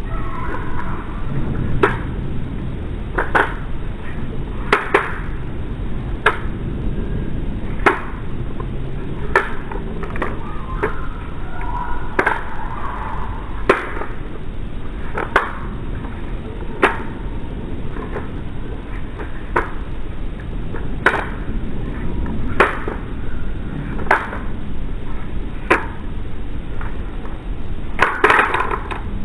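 Cold Steel FGX balisong handles clicking against each other as the Chaplin twirl loop is spun over and over. One sharp click comes about every second and a half, over a steady low background hum.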